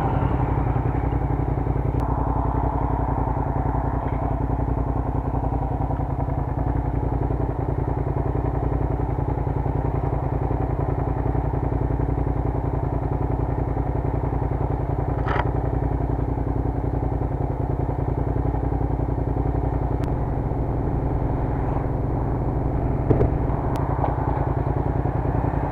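Motorcycle engine running steadily at low revs while the bike creeps along at walking pace, with no revving. A single short click near the end.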